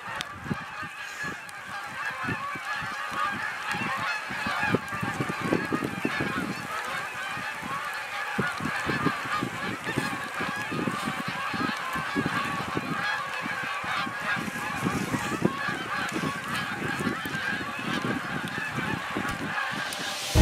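A large flock of geese flying over, many birds honking at once in a continuous, overlapping clamour.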